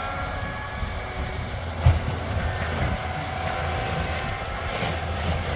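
Heavy machine's engine running steadily with a low rumble, and one sharp knock about two seconds in.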